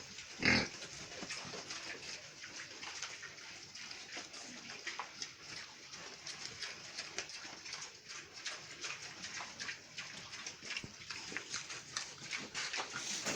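Pigs in a pen: one short, loud pig call about half a second in, then a steady patter of small clicks and rustling.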